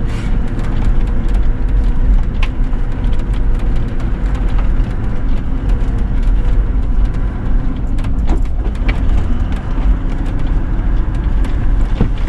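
Off-road vehicle driving along a rough dirt track: a steady low engine and road rumble, with a few short knocks and rattles over bumps.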